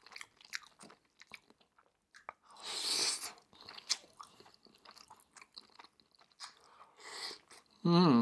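Close-miked mouth sounds of a person eating beef and rice: wet chewing with many small clicks and smacks, a louder hissing sound about three seconds in, and a short voiced sound near the end.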